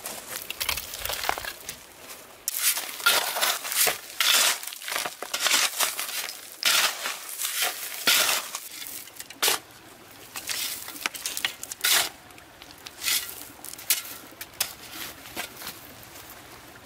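Dry rustling and crunching in irregular strokes, several close together, with a few sharper ones about 9.5 and 12 seconds in.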